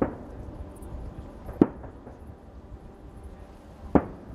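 Aerial fireworks shells bursting: three sharp bangs about two seconds apart, near the start, in the middle and near the end, each trailing off in a short echo.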